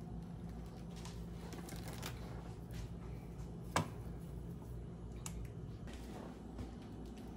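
Quiet handling sounds of cookie dough being rolled and set on a foil-lined baking tray: soft rustling and scattered light clicks, with one sharper click near the middle, over a faint steady low hum.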